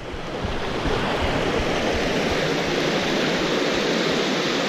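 A fast-flowing river rushing over rocks: a steady rush of whitewater that grows louder over the first second and then holds.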